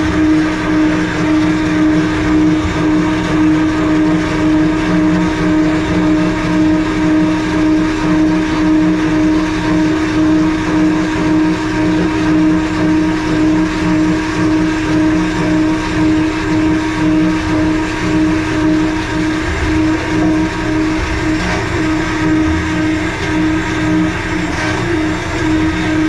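Electric anchor windlass running steadily under load, hauling the three-strand anchor rope in through the deck into the aluminium anchor well: a constant motor whine with a slight regular pulsing.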